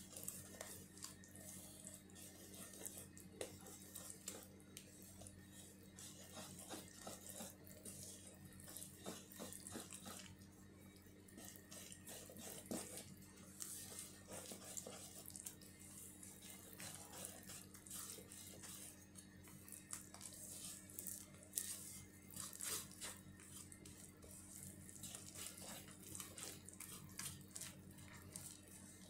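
Faint wet stirring of banana pancake batter being mixed by hand in a bowl, with small irregular scrapes and clicks of the utensil against the bowl.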